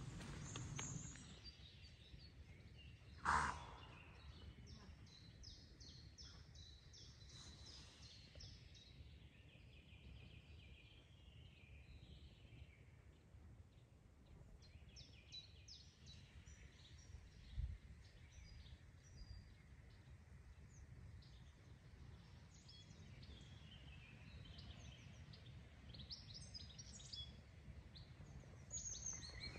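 Quiet woodland ambience with faint, scattered birdsong chirping on and off. One brief sharp sound stands out about three seconds in, and a soft low thump comes near the middle.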